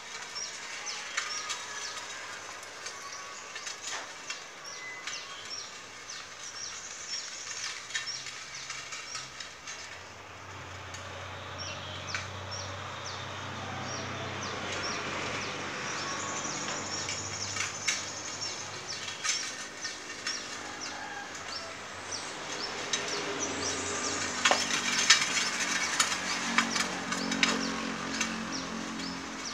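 Homemade three-wheeled mini tractor with an electric motor driving over a dirt path, running with very little motor noise: mostly wheels crackling over grit and twigs, louder and with a low hum near the end as it comes close. A bird chirps steadily in a regular, repeating pattern throughout.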